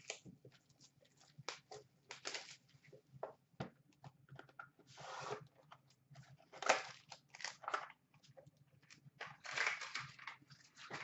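A trading-card hobby box being handled and opened: cardboard scraping and rustling as the lid comes off, with crinkles from the foil-wrapped pack inside. Irregular faint scrapes and taps, with one sharp knock about two-thirds of the way through.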